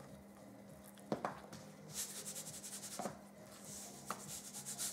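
Seasoning shakers shaken over raw chicken breast: a fast run of dry, rattling shakes starting about two seconds in, after a few light knocks. A steady low hum sits underneath.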